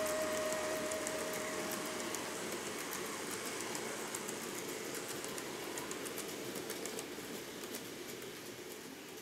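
N gauge model container train running along the layout track: a steady rolling rush with many light clicks from its wheels on the rails, slowly fading as it runs away.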